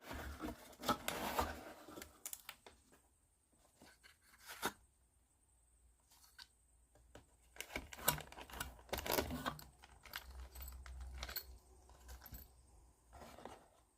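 Hands handling a plywood kit and its packaging: irregular rustling, scraping and sharp clicks of thin wooden sheets and parts, in a few bouts with short quiet gaps.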